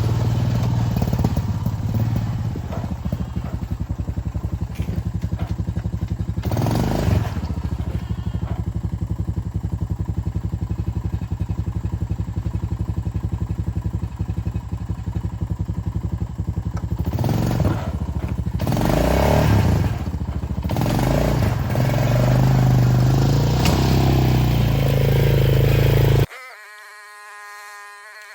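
Mini excavator's small gasoline engine running steadily with a fast pulse, swelling a few times as the machine works and travels to dump its load. It cuts off suddenly near the end, leaving a quieter buzzing hum.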